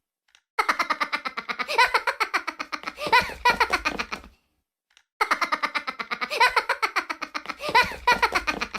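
High-pitched rapid laughter, a clip played on a loop: two identical runs of about three and a half seconds, each followed by a second of silence.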